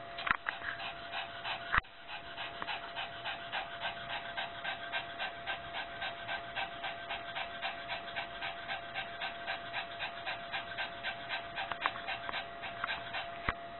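Small dog panting fast and evenly, about three to four breaths a second, during a nighttime anxiety attack. A sharp click sounds about two seconds in.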